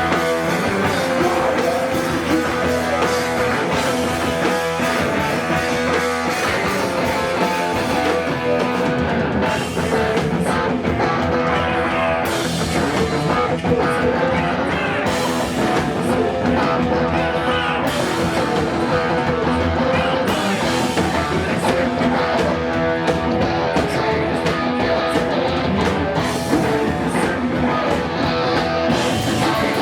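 Rock band playing live: electric guitars and a drum kit driving a fast, loud song, with vocals over it.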